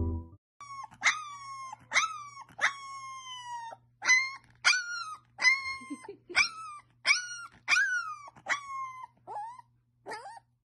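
Puppy howling in about a dozen short, high-pitched cries, one after another, each starting sharply and sliding slightly down in pitch.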